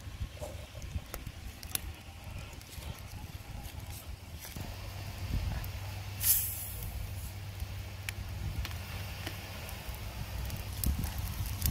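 A plastic bottle of Coca-Cola twisted open: a short, sharp hiss of escaping carbonation about six seconds in as fizz sprays from the neck. Around it, a low rumble and scattered small clicks.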